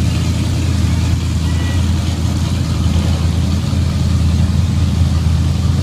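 Truck engine idling steadily, a loud, even low drone.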